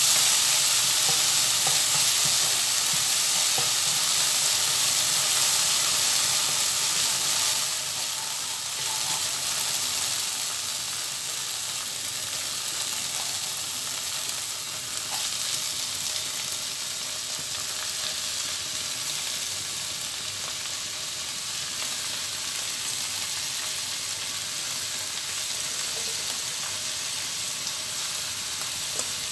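Minced garlic sizzling in hot oil in a wok, a steady frying hiss, stirred with a spatula at first. The sizzle settles a little quieter after about eight seconds.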